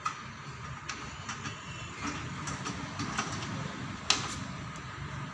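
Exercise machine running with a low hum and irregular sharp clicks or knocks about once a second, the loudest about four seconds in: the unwanted noise it is making.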